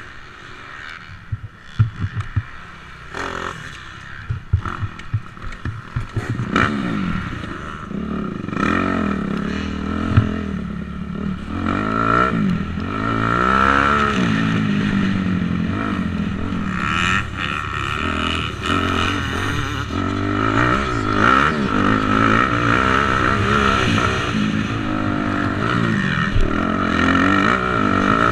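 250cc motocross bike engine revving up and down repeatedly under hard riding. For the first several seconds it is quieter and scattered knocks and rattles stand out, then the engine note climbs and drops again and again.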